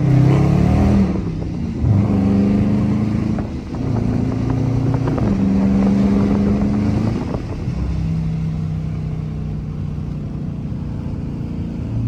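Dodge Charger R/T's 5.7 L Hemi V8 accelerating, heard from inside the cabin. The engine note climbs and steps down at each upshift, a few times in the first seven seconds, then holds at a steady, lower cruise.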